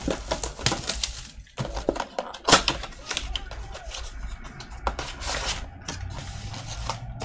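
Cellophane shrink wrap crinkling and crackling as it is peeled off a cardboard trading-card blaster box, in irregular sharp crackles with one loud snap about two and a half seconds in. The cardboard box is then handled and its top flap opened.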